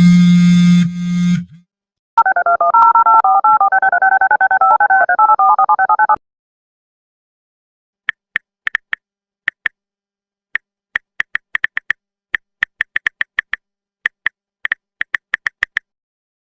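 Mobile phone vibrating with a loud buzz for about a second and a half. Then about four seconds of rapid touch-tone (DTMF) keypad beeps, each a pair of tones. After a pause, a long run of quick, irregular keypad taps, like typing on a phone.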